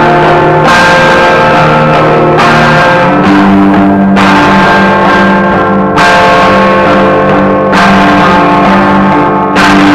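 Electric guitars playing sustained, effects-laden chords that change every couple of seconds, in a loud band recording.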